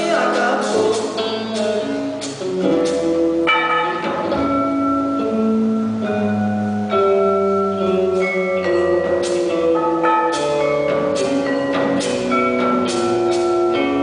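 Live instrumental passage by a guitar and drum trio: guitar chords and melody notes that ring on, over a drum kit with many drum strikes and ringing cymbal hits.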